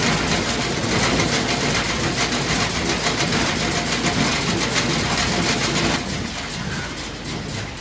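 International 445 small square baler running, a steady loud mechanical clatter of the baler under power. The noise drops sharply about six seconds in.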